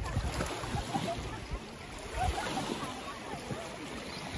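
Small waves lapping in shallow lake water around an inflatable raft, with a low wind rumble on the microphone and faint voices in the distance.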